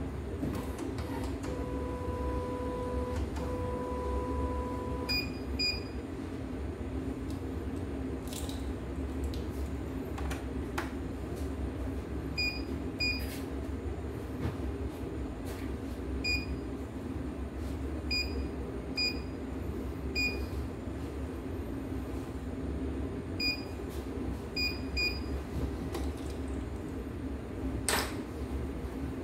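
CNY E900 computerised embroidery machine beeping: two long low beeps in the first few seconds, then a string of short high beeps, mostly in pairs, as its touch-screen and buttons are pressed. A steady hum and a few light knocks run underneath.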